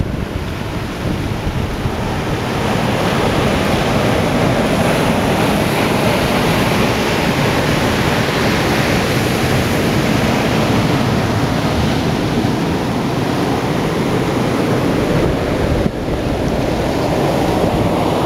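Ocean surf breaking and washing in, a steady loud rush, with wind on the microphone.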